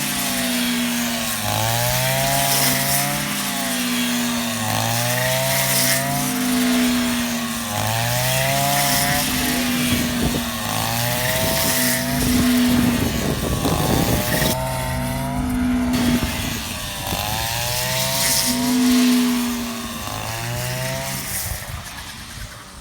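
Rice combine harvester running under load: a loud, noisy mechanical clatter, with an engine note that rises and falls back in a regular cycle about every three and a half seconds. It fades away near the end.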